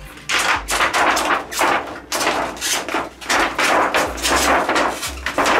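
The large white reflector sheet from inside an LCD TV's backlight crinkling and crackling loudly as it is handled and lifted off the LED strips, in a run of rough bursts about two or three a second.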